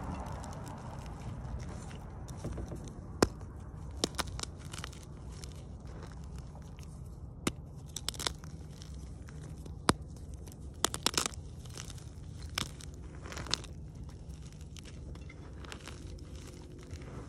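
Gym chalk being crushed and crumbled: scattered sharp cracks and crackles at irregular intervals, some in quick clusters, over a low steady hum.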